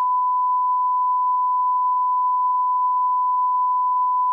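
Censor bleep: one steady, unbroken single-pitched beep tone, standing in for the audio.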